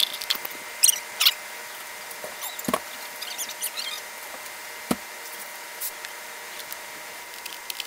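Hands rubbing and lathering shampoo into a wet dog's coat, making short, irregular squishy, squeaky sounds. There are two sharp taps, about a third and two-thirds of the way through.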